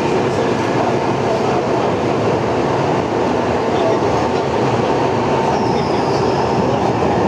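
Tokyo Metro 03 series chopper-control subway car running, heard from inside the car: a steady rumble of wheels and running gear with a thin steady tone, and a faint brief high squeal toward the end.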